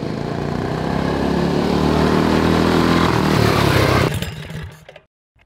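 Go-kart engine running under throttle, growing louder over about four seconds, then cut off abruptly and tailing away to a moment of silence.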